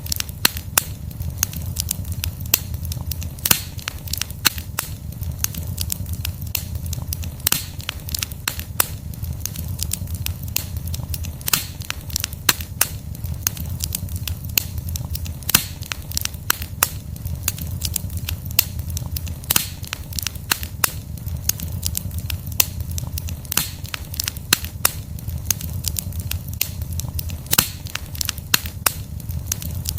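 Wood fire burning: logs crackling and popping in frequent, irregular sharp snaps over a steady low rumble of flames.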